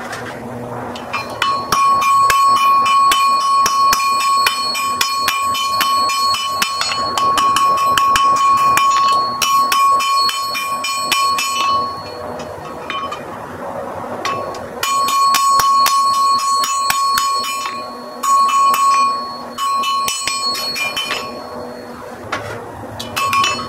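Blacksmith's hammer striking a red-hot iron bar on an anvil in quick runs of blows, the anvil ringing with a steady high tone. The runs break off for a few seconds between heats.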